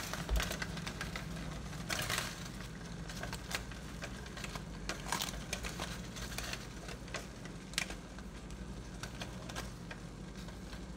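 Aluminium foil being pulled open and crumpled by hand, giving irregular sharp crinkles and crackles, over a steady low hum.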